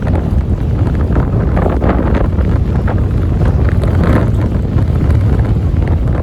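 Strong wind buffeting the microphone: a loud, low, steady rumble with gusts rising and falling, perhaps with waves on the shore beneath it.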